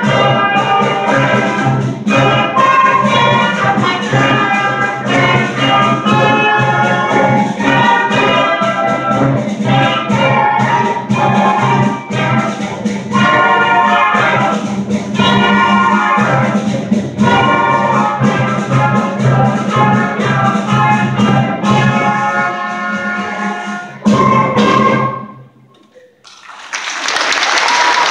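A seventh-grade concert band of woodwinds, brass and timpani playing, closing on a final chord about 24 seconds in. After a brief hush, the audience starts applauding near the end.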